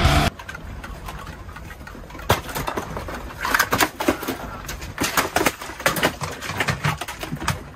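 Heavy metal music cuts off just after the start. Then objects on shelves of figurines rattle and clatter in a room, with irregular knocks and clicks, some in quick clusters, over a low rumble, as from a room being shaken by an earthquake.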